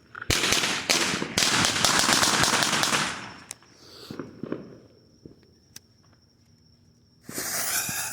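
Consumer fireworks going off: a sudden bang, then about three seconds of dense, rapid crackling pops. A few scattered pops follow, and another loud burst of noise starts about seven seconds in.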